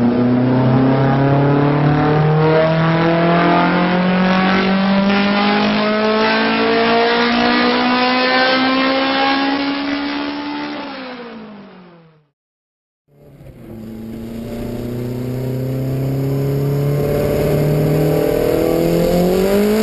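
Honda VTEC car engine pulling up through the revs, its note climbing steadily for about ten seconds before dropping and fading out. After a second of silence a second engine recording fades in, holds a steady note, and starts revving up again near the end.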